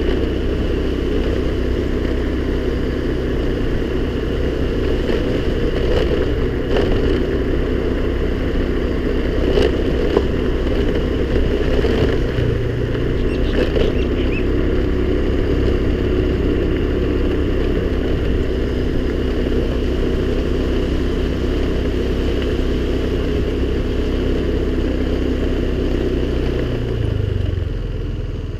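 Honda scooter engine running steadily under way, with a few clattering knocks along the way. Near the end the engine note drops as it eases off.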